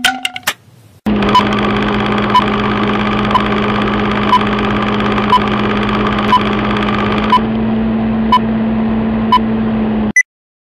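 Film-projector countdown sound effect: a steady projector whir and rattle with a short beep once each second as the leader counts down, about nine beeps, after a few clicks in the first second. It cuts off suddenly near the end.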